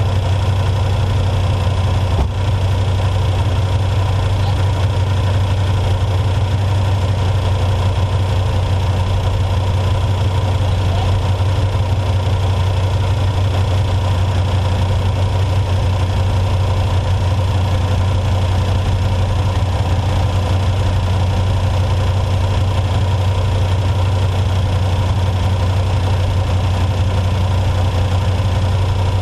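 Off-road race truck's engine running steadily at an unchanging pitch, a deep even drone with no revving.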